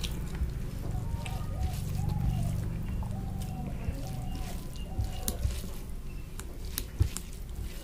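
Fingers mixing and squeezing rice with dal on a plate: soft squishing with a few sharp clicks, the clearest about five and seven seconds in. A steady low hum and faint gliding tones run underneath.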